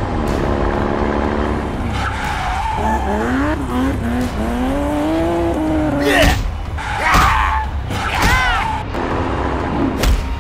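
Vehicle engine sound effect running and then revving, its pitch gliding up and down, followed by a few short, sharp skid-like noises between about six and nine seconds in.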